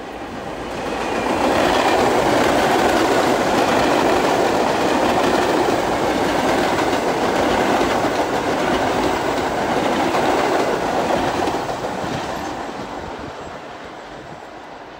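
New York City subway train passing at speed on a middle track, its wheels clattering over the rails. The noise builds over the first second or two, holds steady for about ten seconds, then fades as the train moves away.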